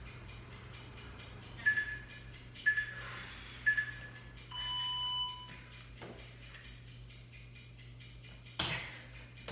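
Workout interval timer counting down: faint quick ticking, then three short high beeps about a second apart and one longer, lower beep that marks the start of the next exercise interval. A single thump near the end.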